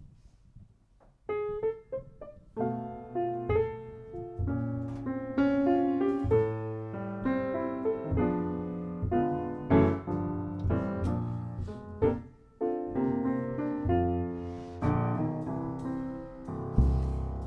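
Piano playing a slow jazz introduction in chords, starting about a second in, leading into a vocal song.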